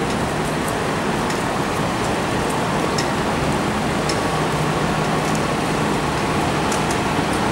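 Idling FDNY fire engine and ambulance engines: a steady low hum under general city traffic noise, with a faint whine that comes in about four seconds in.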